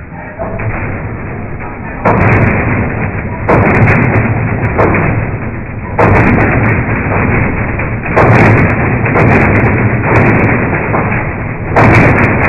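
158cc four-stroke lawn mower engine starting on a pull of the cord and running a scratch-built 18-inch centrifugal fan impeller. The din surges louder in sudden steps every few seconds.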